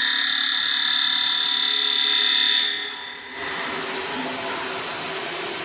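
A steady, loud high-pitched machine whine that stops about two and a half seconds in, followed by a steady rushing, hissing machine noise.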